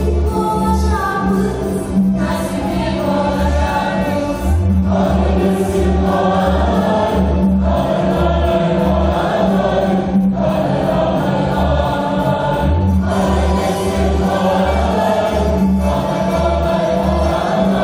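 Dance music with a choir singing over a steady low drum beat, about two beats a second.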